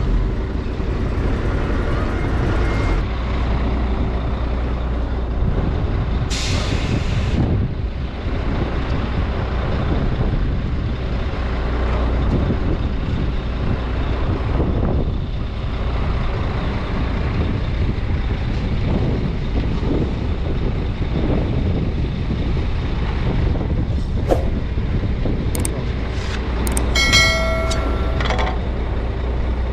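A truck engine running steadily with a low hum, with a short hiss of air about six seconds in. Near the end come a few sharp clicks and a brief ringing metallic clang.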